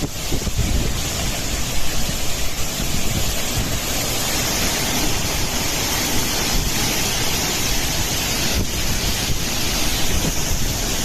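Cyclone winds with heavy rain: a steady roar of storm wind buffeting the microphone.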